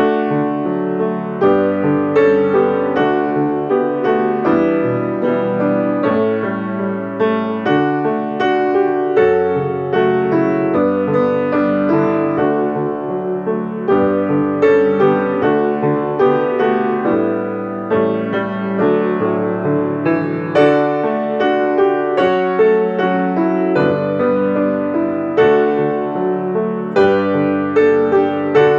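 Piano playing a slow piece, chords of several notes struck about once a second or so and left to ring.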